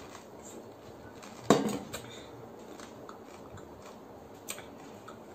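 A person eating pani puri: one loud, short mouth sound about a second and a half in that falls in pitch, then faint chewing with a few small clicks.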